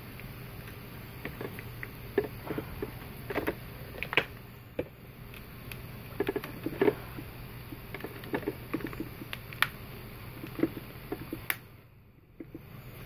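Irregular small plastic clicks and taps from hands handling a phone and the recording device, over a steady low hum. Near the end the sound briefly drops out almost to silence.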